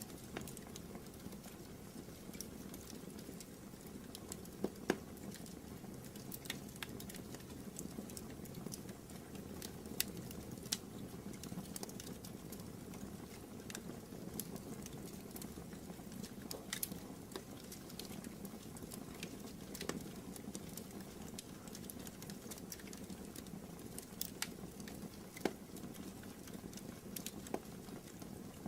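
Wood fire burning in a fireplace: a soft steady rush with irregular sharp crackles and pops.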